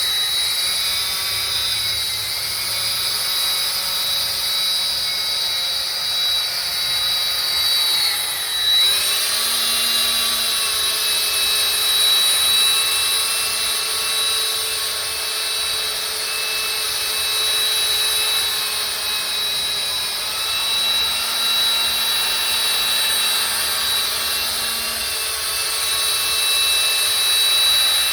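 Small high-speed electric power tool running steadily with a high whine, its pitch dipping briefly about nine seconds in as it is loaded against the work.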